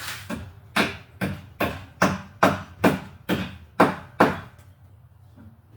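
A hammer striking wood in a steady run of about nine sharp blows, roughly two a second, stopping a little past the middle.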